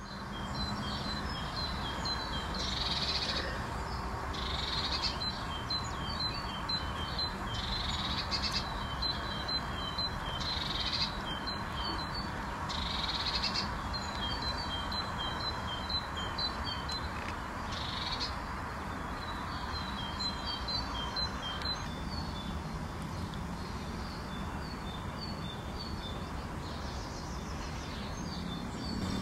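Small birds singing: repeated phrases of short, high chirps, over a steady outdoor background hiss.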